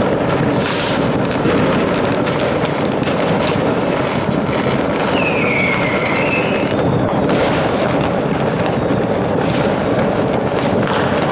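New Year's Eve fireworks and firecrackers going off all around, a dense, unbroken crackling and banging. About five seconds in, a short whistle slides down in pitch.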